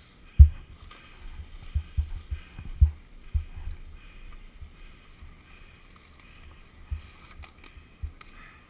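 Irregular low thumps and knocks as a stuck dirt bike is wrestled against a tree on a wooded slope and tips onto its side. The hardest knocks come in the first three seconds.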